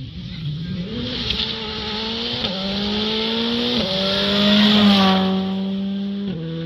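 A rally car's engine accelerating hard on a gravel stage. It climbs in pitch and drops sharply at three upshifts, about two and a half, four and six seconds in. It is loudest as the car passes close near five seconds, where the pitch dips as it goes by, with a hiss of gravel from the tyres.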